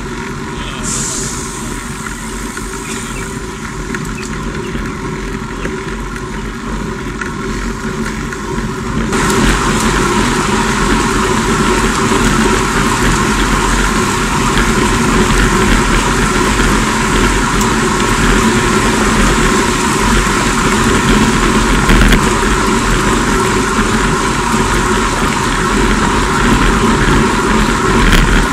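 Steady wind and tyre-on-road noise from a road bike riding in a group, heard through a bike-mounted camera's microphone. It gets much louder about nine seconds in, at higher speed.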